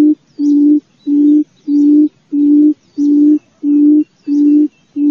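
Wild quail giving a low hooting call over and over, each hoot a steady note of about half a second, evenly repeated about one and a half times a second. Faint high chirps of small birds run behind it.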